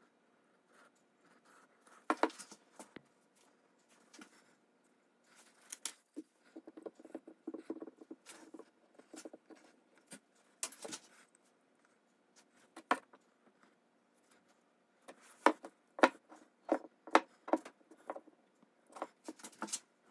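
Small handling noises of gloved hands working plastic mixing cups over an epoxy mold: scattered sharp clicks and taps, a stretch of soft rustling in the middle, and a quick run of taps near the end.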